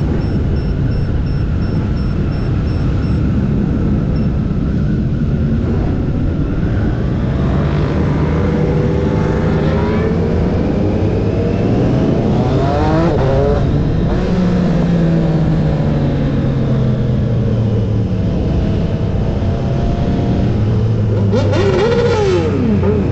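Motorcycle engines revving over a steady low rumble. The pitch climbs twice in the middle and then slides down slowly, and there is a short sharp rev near the end.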